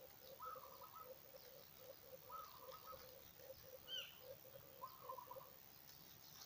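Faint birdsong. A low note repeats several times a second throughout, a higher warbling phrase comes about every two seconds, and a single brief high chirp sounds about four seconds in.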